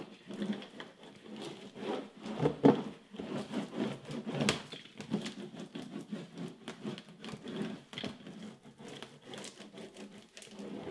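Hand brayer (rubber roller) rolled back and forth over paper glued with gel medium to a wood panel, pressing it flat to push out air. It makes an uneven rolling, rubbing sound with a couple of sharper knocks.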